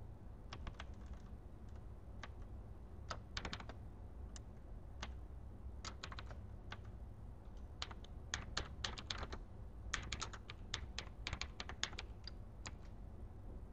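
Computer keyboard being typed on: single keystrokes at first, spaced out, then a quicker run of keys in the second half, over a low steady hum.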